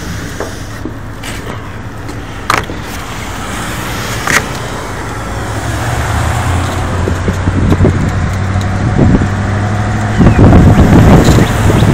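Flatbed truck engine running with road noise, heard from the open deck. The sound grows steadily louder as the ride goes on, with a couple of sharp knocks in the first half and wind buffeting the microphone over the last two seconds.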